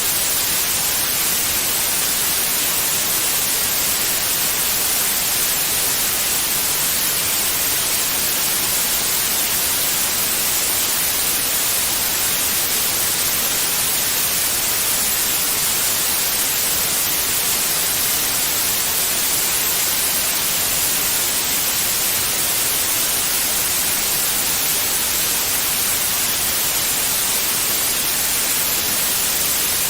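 Steady white noise, an even hiss brightest in the high frequencies, unchanging throughout.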